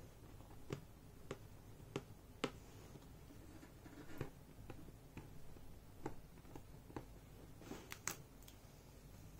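Faint clicks and small crackles of black electrical tape being pulled off the roll and pressed down around a bodhrán's rim over the edge of the skin. The clicks come about every half second at first, then more scattered, with a quick little cluster near the end.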